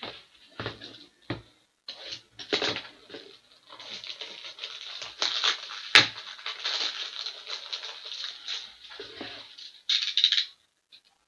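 Rustling and crinkling of plastic card sleeves and holders being handled, with scattered clicks and one sharp snap about six seconds in.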